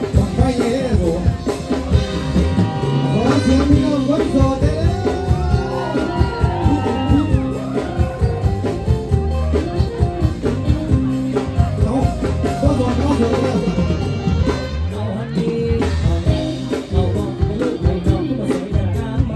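Upbeat music with a steady drum beat and a man singing into a handheld microphone over a loudspeaker system.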